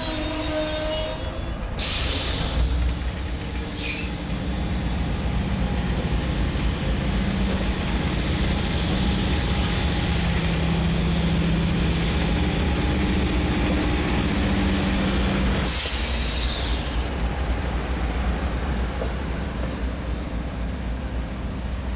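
Amtrak passenger train passing close by at speed: a steady rumble of steel wheels on the rails, with a high wheel squeal fading out in the first second or so. Sudden bursts of rushing noise come about two seconds in and again about sixteen seconds in.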